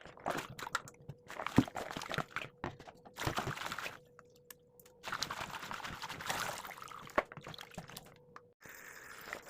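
Liquid being poured and splashing in the kitchen, in several stretches with short breaks, mixed with clicks and knocks and one sharp knock about one and a half seconds in.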